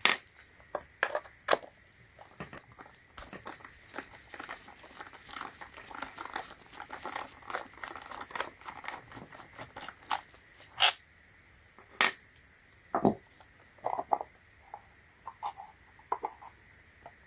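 Plastic battery-charger housing being worked open with a hand tool: a dense run of small plastic clicks and crackles, then several louder separate clicks and scattered ticks toward the end.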